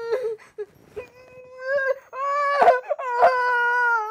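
A high-pitched voice wailing and crying: short broken cries, then a long held wail through the second half.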